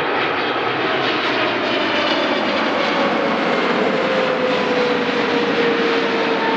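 Jet airliner passing close by, its engines making a loud, steady noise with a whine that slowly falls in pitch.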